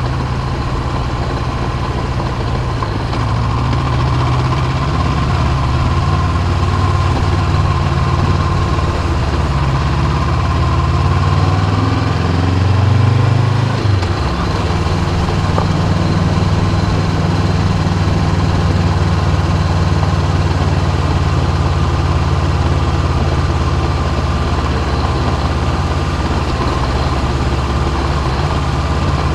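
Honda CB500X's parallel-twin engine running steadily. About eleven seconds in its pitch rises, then falls away sharply around fourteen seconds, and it runs steady again.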